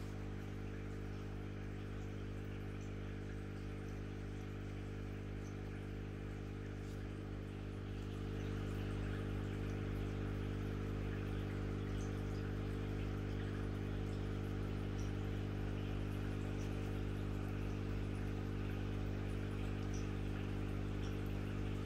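A steady low machine hum, one pitch with many overtones, getting a little louder about eight seconds in.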